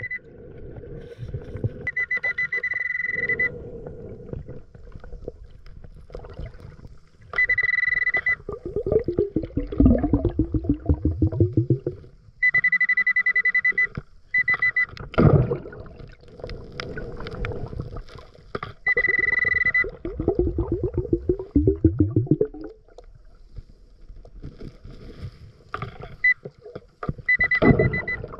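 Underwater pulse-induction metal detector (Nokta Pulse Dive) giving a steady high beep in repeated bursts of about a second each, signalling metal under the coil. Between the beeps come gurgling runs of a diver's exhaled bubbles.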